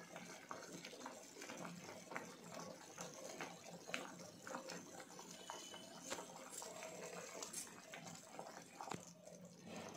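Thick taro root gravy boiling in a pot: a steady run of small bubbling pops and blips.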